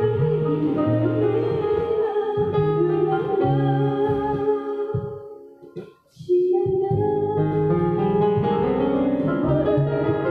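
Live music: a woman singing into a microphone over electronic keyboard accompaniment. The music breaks off briefly about halfway through, then comes back in.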